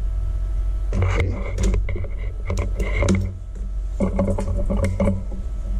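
Hands handling cables and plugging a small plastic wire connector into the LCD panel: clusters of light clicks and rattles, three times, over a steady low hum.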